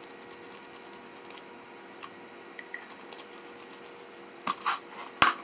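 A solder sucker (desoldering pump) being handled and emptied: sparse light plastic clicks, then a few louder clicks and rattles near the end, over a faint steady hum.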